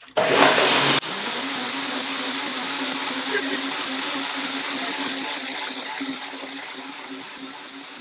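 Two countertop blenders, a VAVA and a Ninja, switched on together at full power, very loud as the blades chop vegetables and warm water for soup. About a second in the sound drops abruptly to a steady whirr with a constant hum, growing gradually quieter near the end.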